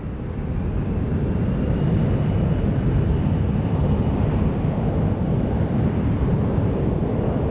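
Gulfstream G-IV business jet's Rolls-Royce Tay turbofans at takeoff power as it lifts off and climbs out: a loud, steady jet roar that builds over the first couple of seconds.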